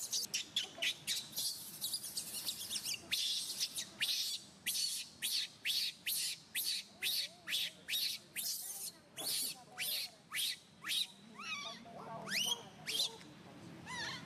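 Baby macaque crying: a rapid run of short, shrill squeals, about three a second, giving way in the last few seconds to longer rising wails.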